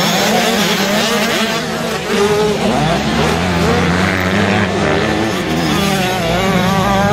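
Several motocross dirt bikes racing, their engines revving up and down in pitch as the riders work through the corners.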